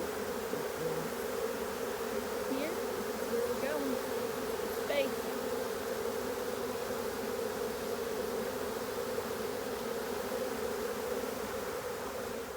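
A swarm of honeybees buzzing steadily around a hive box as the bees move in to join their captured queen. A few times an individual bee passes close, its buzz briefly rising and falling in pitch.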